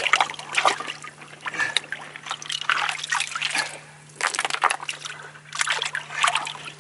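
Hands scooping wet gravel out of a water-filled rock pothole: irregular splashing and sloshing, with water dribbling off each handful as it is lifted and thrown out.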